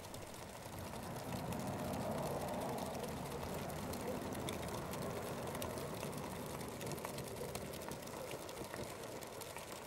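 Homemade soda-can alcohol stove burning on methylated spirits, its ring of side jets lit: a low, steady rushing of flame that swells a little about a second in and eases slightly toward the end. The stove is fully heated, with fuel vaporizing in the outer chamber and feeding the jets.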